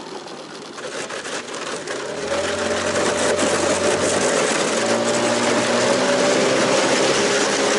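Nissan Marine 9.8 hp outboard motor driving a small boat. It grows louder over the first few seconds as the boat gets under way, then runs steadily, with a hiss of rushing water.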